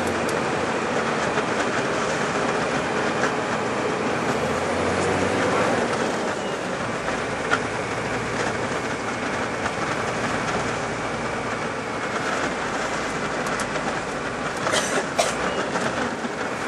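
Steady rumbling cabin noise inside a moving bus in a snowstorm: engine, tyres and wind blend into one continuous din. A few sharp clicks come near the end.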